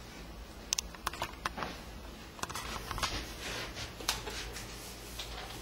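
Handheld camcorder handling noise: scattered soft clicks and rustles as the camera is moved about, over a low steady hum.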